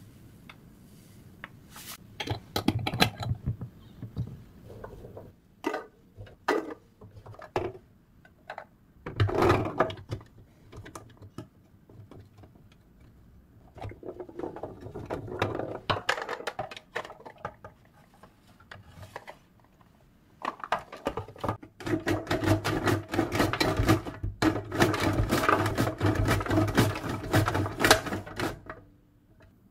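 Garlic cloves being sliced on a plastic mandoline slicer, the hand-guard holder pushed back and forth over the blade in spurts of quick rasping, clicking strokes. The longest and fastest run of strokes comes in the last several seconds.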